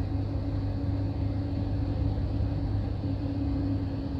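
Inside a Greyhound intercity coach at highway speed: steady engine and road noise, a low drone with a held tone above it.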